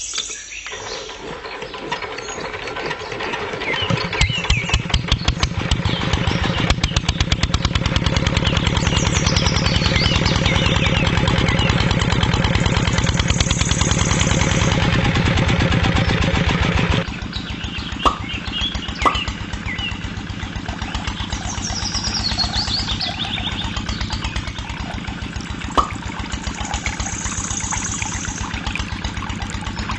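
Engine starting and running with a fast, even chugging: it builds up over the first few seconds, runs loud and steady, then drops suddenly to a quieter steady run about seventeen seconds in.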